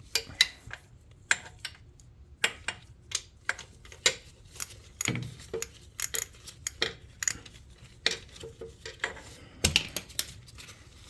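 Irregular sharp metallic clicks and clinks of a wrench on the gearbox drain plug, as the plug is worked loose to drain the gear oil.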